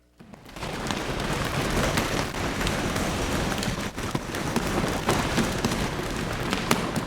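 A congregation imitating an earthquake all at once: a loud, dense din of many small knocks and a low rumble, building up in about the first second.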